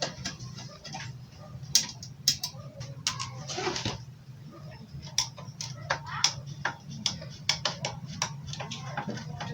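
Scattered light clicks and taps of a screwdriver and screws on the casing of an inverter welding machine as it is opened up, over a low steady hum.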